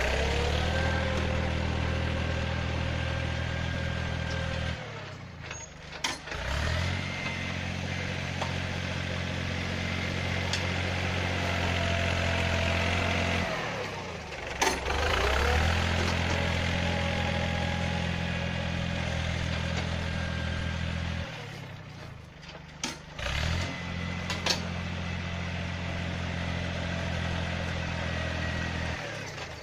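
Yanmar 1145 tractor's diesel engine running steadily under load while pushing dirt with its blade. The engine note drops off three times, about five seconds in, near the middle and about two-thirds through, then rises back up each time.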